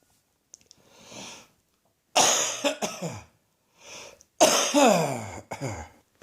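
A person's persistent cough in two bouts, each a quick run of several coughs, the first about two seconds in and the second a little after four seconds. Short sharp in-breaths come before each bout.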